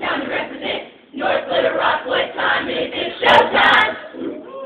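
A group of students singing together, choir-style, with a short break about a second in and two brief clicks a little over three seconds in.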